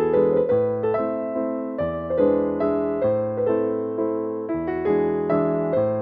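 Background piano music, with notes struck and fading in a steady rhythm and the bass note changing every second or two.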